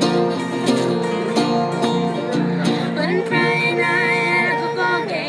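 Live acoustic country/bluegrass jam: picked guitar with a voice singing over it, the singing strongest from about three seconds in.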